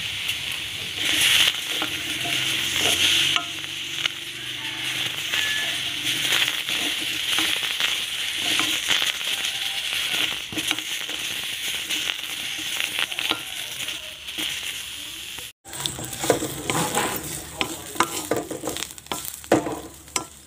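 Green chilies, shallots and garlic cloves dry-roasting and sizzling in a wok, stirred with a wooden spatula that scrapes and knocks on the pan throughout.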